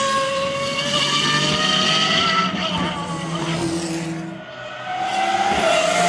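Pagani Huayra R's naturally aspirated V12 at high revs, its pitch climbing steadily as the car accelerates. About four and a half seconds in the sound dips, then comes back loud and high near the end.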